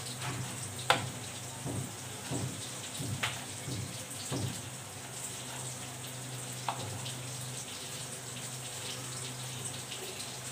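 Kitchen knife cutting through stacked pastry sheets on a wooden board. A few sharp taps of the blade on the board are heard, the loudest about a second in. A steady hiss and low hum run underneath.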